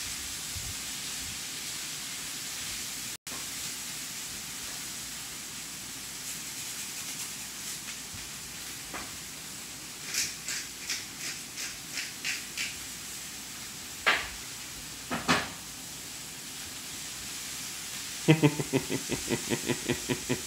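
A small dog sniffing in quick short bursts as it searches through couch cushions, with a couple of louder snorts or pillow rustles. Near the end comes a loud, fast run of short pitched sounds, about three a second.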